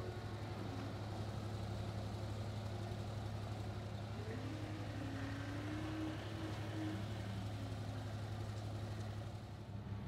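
Compact track loader's diesel engine running steadily, with a faint wavering whine that rises and falls about halfway through.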